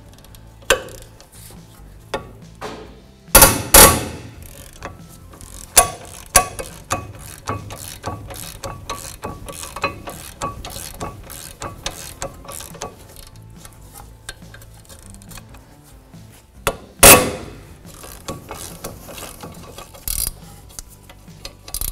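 Socket ratchet clicking as the 17 mm caliper bracket mounting bolts are loosened and backed out of the steering knuckle, with two loud sharp bangs, about three and a half seconds in and again about seventeen seconds in.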